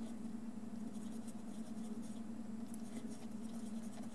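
Fiberglass scratch brush rubbing across a small model-locomotive motor's commutator, scrubbing off built-up carbon: faint, light scratching over a steady low hum.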